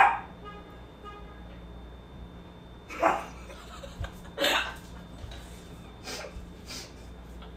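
A woman laughing in short breathy bursts, about three seconds in and again a second and a half later, then a few fainter breaths.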